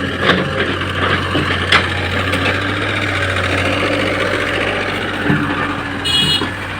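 Heavy diesel engine running steadily, with a couple of sharp clanks in the first two seconds. A short, high-pitched tone sounds near the end.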